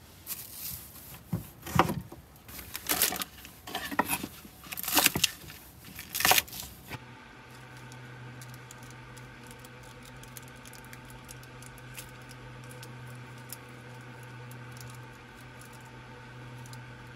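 Kitchen knife cutting through radish onto a wooden cutting board, sharp strokes about once a second for the first several seconds. Then a steady low hum with faint ticking from a pot of fish stew heating on a gas burner.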